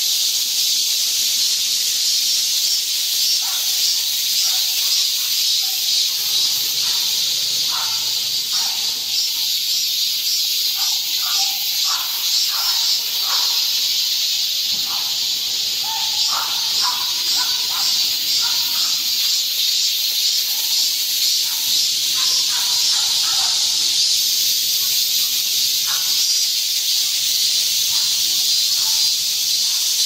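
A chorus of summer cicadas singing in the trees: a dense, steady, high buzzing drone that holds without a break.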